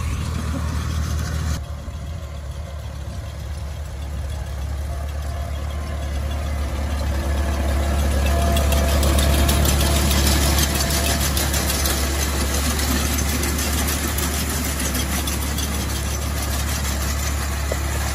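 Antique tractor engine running steadily while it drives a mounted corn picker through standing corn. It grows louder toward the middle as it comes close, with a rapid mechanical clatter through the second half.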